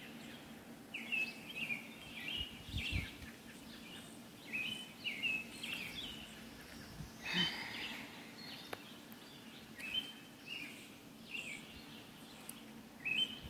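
A songbird singing short phrases of chirps, repeated about every three seconds, over faint steady outdoor background noise.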